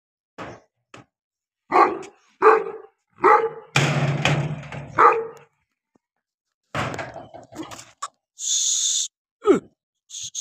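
Pakistani bully kutta barking: a string of deep, irregularly spaced barks, with a short hissing noise near the end.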